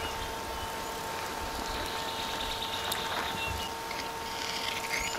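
Steady hum of an idling vehicle engine, with a constant mid-pitched tone. A few faint, short bird chirps come through it.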